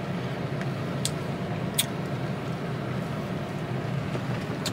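Steady low hum of a car heard from inside the cabin, with a few sharp clicks.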